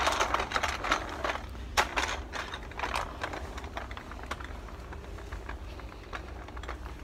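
Supermarket shopping trolley rattling as it is pushed along, a fast irregular clatter of clicks, louder in the first few seconds and then somewhat softer. The trolley is noisy.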